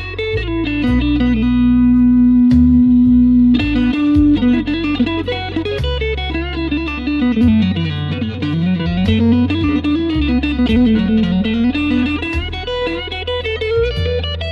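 Blues lead guitar on a Fender Stratocaster played through a BOSS GT-100 multi-effects unit set to its COMBO amp sound, over a backing track with a bass line. A long held note comes near the start, then quick phrases that run down and climb back up.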